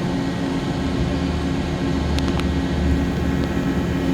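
Mori Seiki SL-154SY CNC lathe running a program on a 304 stainless steel part: a steady machine hum with a few faint clicks about two seconds in.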